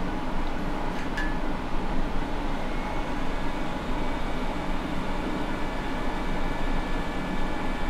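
Hot air rework gun blowing a steady stream of air onto a steel reballing stencil, heating the solder to reball an iPhone X NAND storage chip. There is a light click about a second in, and a faint high whine joins about three seconds in.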